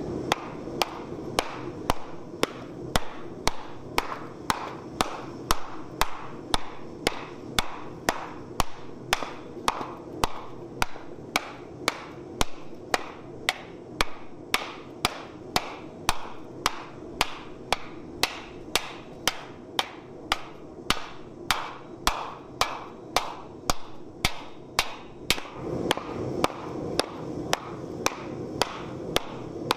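Hammer blows on a red-hot steel wok blank laid over a hollowed wooden stump, dishing it into a bowl: a steady run of evenly paced, sharp strikes, a little under two a second, with a steady low rumble behind them.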